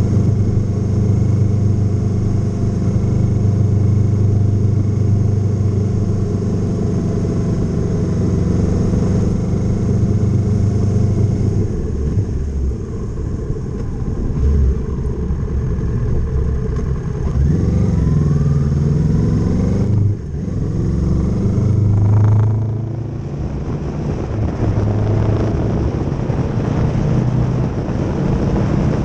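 Kawasaki Z650 motorcycle engine under way, running at a steady pitch for the first part. After that the revs vary: they rise and fall, dip briefly about two-thirds of the way in, climb again and then drop off before settling.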